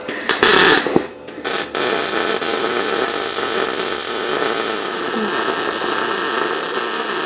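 Electric arc welding on steel: a short burst of arc, then a steady hiss lasting about six seconds that stops abruptly.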